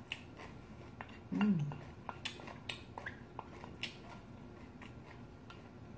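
Light, scattered clicks of chopsticks against a small porcelain bowl while eating, about ten over the few seconds, with one short hummed vocal sound dropping in pitch about a second and a half in.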